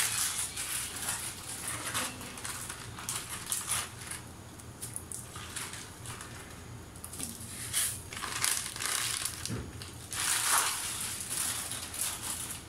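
Plastic noodle packet crinkling and crackling in the hands while dry rice vermicelli (bihon) blocks are put into a pot of boiling water. The crackling comes in irregular bursts, loudest near the end, over a low steady hum.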